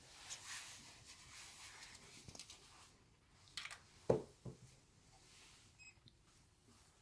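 Quiet room with faint rustling of clothing and hands as people hold a planchette on a spirit board, then a couple of short, sudden knocks a little over halfway through, followed by a brief faint beep.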